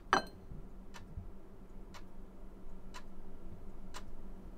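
A sharp knock as a plate is set down on the table, then a clock ticking slowly and evenly, about once a second.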